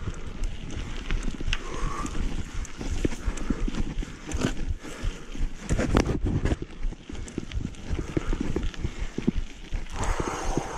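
Mountain bike rattling and knocking irregularly over a rough, rocky trail, with low wind rumble on the microphone.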